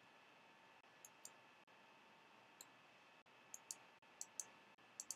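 Near silence with faint, short clicks from working a computer's controls, about nine in all, several in quick pairs.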